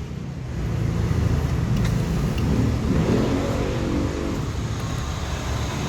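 A motor vehicle engine running with a steady low rumble. Its tone rises and swells about three seconds in.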